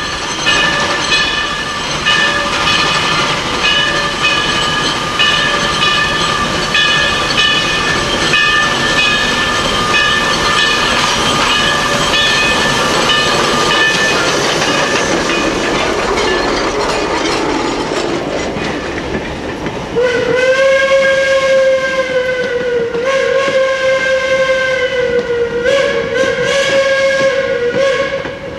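Three-truck Climax geared steam locomotive working past at close range, with rapid pulsing exhaust and a steady high whine. After it, the log cars roll by with clickety-clack, and about two-thirds of the way in a loud wavering squeal from the wheels starts.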